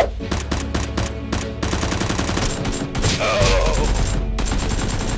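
Gunfire sound effects: a few separate shots, then several bursts of rapid automatic fire, over background music.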